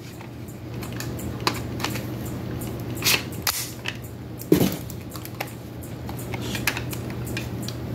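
Scattered plastic clicks and knocks from a plastic toy gun being handled and fiddled with, the loudest a knock with a dull thud about four and a half seconds in.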